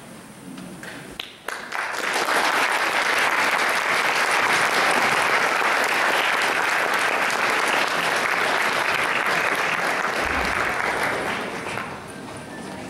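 Audience applauding, starting about a second and a half in, steady and loud, then dying away near the end.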